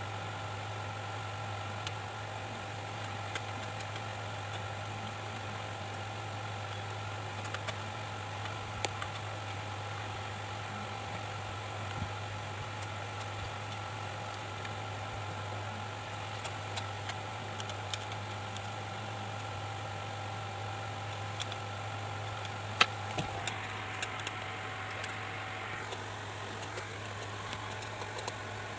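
Steady electric hum with a higher motor whine from bench equipment, with scattered light clicks of metal tools on the circuit board. The whine drops out about three-quarters of the way through, and a few sharper clicks follow.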